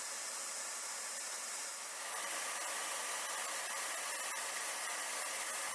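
Steady rushing hiss of jet aircraft in flight, engine and airflow noise with little low rumble, growing slightly louder about two seconds in.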